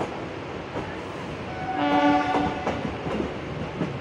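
A train horn sounds once, briefly, about two seconds in, over the steady rumble and scattered wheel clicks of a moving train.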